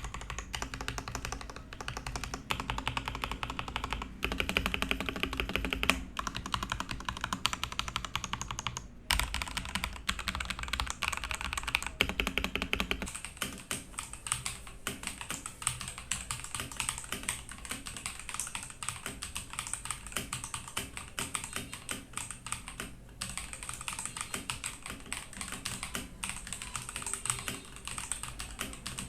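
Fast, continuous typing on a Ganss GS3087T Li mechanical keyboard, many key clicks a second. About 13 seconds in, the keystrokes turn thinner and a faint steady high tone comes in.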